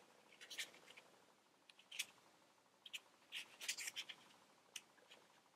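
Near silence with faint, scattered rustles and light scratches of hands handling a small fabric rose, a little busier just past the middle.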